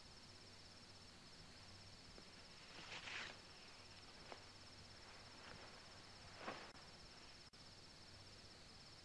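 Near silence with faint, steady high-pitched chirring of insects, broken by two soft rustles about three seconds in and again past six seconds.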